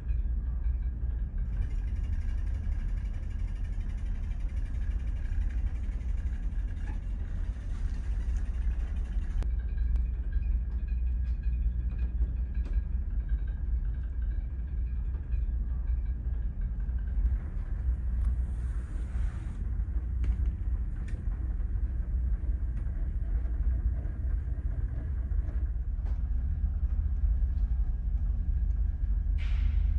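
Steady low drone of the ferry's engines and hull vibration, heard inside a passenger cabin while the ship is under way, with a faint high hum over it and a few light clicks.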